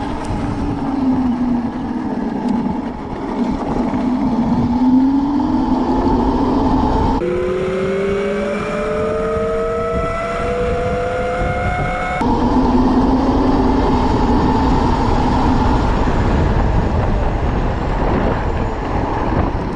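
Electric mini-bike's 72-volt QS90 motor and chain drive whining under heavy wind noise, the pitch rising and falling as the bike speeds up and slows. Partway through, the sound cuts abruptly to a clearer whine that climbs steadily as the bike accelerates, then cuts back.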